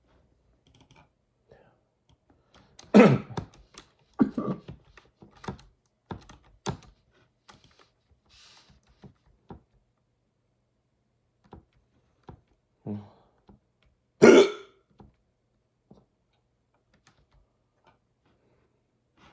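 A person hiccuping several times, the loudest hiccups about three seconds in and about fourteen seconds in, with light computer-keyboard typing clicks in between.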